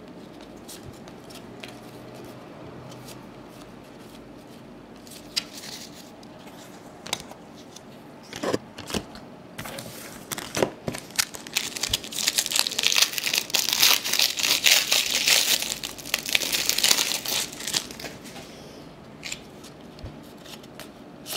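A Topps basketball card pack being torn open by hand: a few light clicks and taps of handling, then about twelve seconds in a loud crinkling and tearing of the pack wrapper that lasts about six seconds, before it settles back to soft handling noises.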